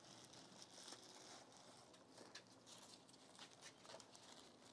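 Near silence, with faint scattered crinkles and ticks of plastic and foil packaging being handled.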